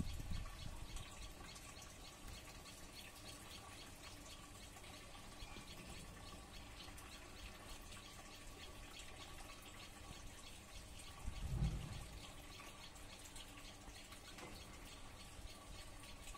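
Faint outdoor background: a low hiss with rapid, faint high-pitched ticking, and a brief low rumble a little after halfway.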